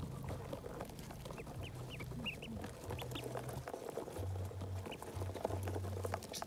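A crowd of domestic ducklings peeping, short high peeps scattered throughout, with light rustling, over a low hum that starts and stops in short stretches.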